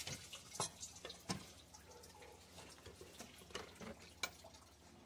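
Antifreeze dripping from the engine onto the floor in scattered drops as the water pump is lifted out, faint and irregular.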